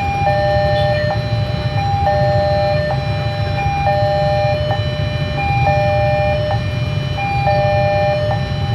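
Railway level-crossing warning alarm sounding continuously, a higher and a lower chime alternating roughly once a second, over a steady low rumble.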